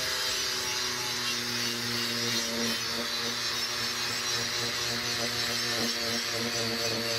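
Angle grinder with an abrasive disc running steadily, grinding rust off a steel bar: a constant motor hum under a dense grinding hiss.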